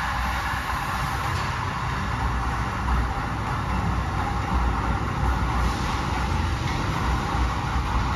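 Amtrak stainless-steel passenger cars passing along the platform: a steady rumble of wheels on rail with a hiss of rolling noise.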